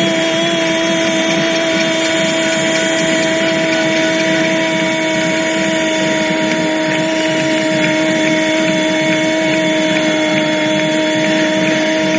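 A single long, steady horn note sounding in the stadium over crowd noise, celebrating a goal.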